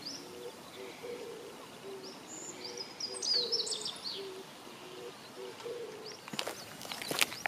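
Wild birds calling outdoors: one bird gives a low call of short notes that repeat and alternate between two pitches the whole time, and another sings a quick series of high chirps in the middle. A few sharp clicks come near the end.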